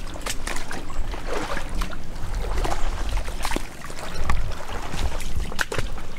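Shallow creek water sloshing and splashing around an angler's waders as he shifts his footing, with scattered short splashes over a constant low rumble.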